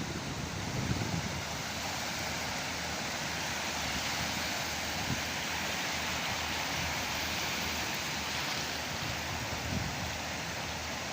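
Sea surf washing and breaking, a steady rushing hiss that swells in the middle, with wind buffeting the microphone in low gusts.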